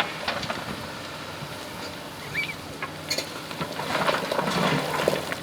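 Excavator working in a stony riverbed: its diesel engine hums steadily under a crackle of stones scraping and clattering, which grows louder about four seconds in.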